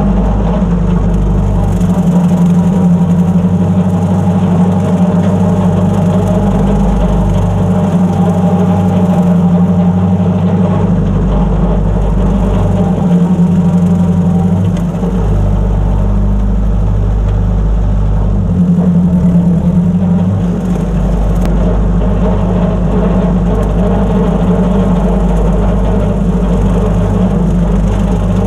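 1948 Ford 8N tractor's four-cylinder flathead engine running steadily under load while powering a brush hog through tall grass. The engine note dips briefly about halfway through and again about two-thirds in.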